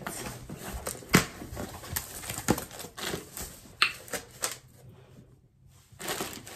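Cardboard shipping box being opened by hand: irregular clicks, taps and scrapes as the flaps are pulled and folded back, then a brief rustle of plastic packaging near the end.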